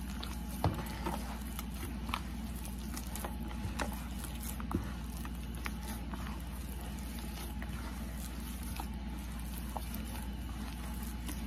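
Hands kneading wet corn masa dough in a plastic bowl, with soft, irregular squelches and slaps, over a steady low hum.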